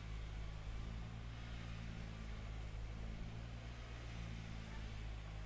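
Steady low engine hum of heavy paving machinery running at constant speed, under a faint even hiss.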